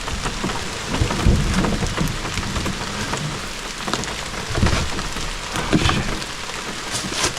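Steady rain pattering down, with a few dull low thumps mixed in, about a second, four and a half and six seconds in.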